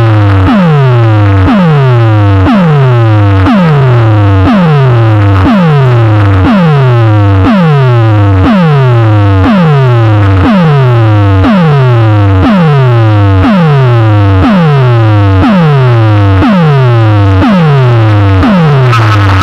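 Very loud electronic music from a competition DJ sound system. A synthesizer effect repeats a steep falling pitch sweep about every three-quarters of a second, each one ending in a strong bass note.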